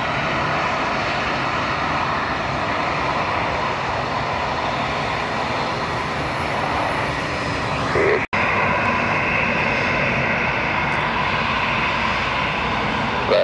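Jet engines of a TAP Airbus A320-family airliner running on the runway after touchdown, a steady heavy rush. About eight seconds in, the sound cuts abruptly to a closer jet at ground speed with a steady, higher whine.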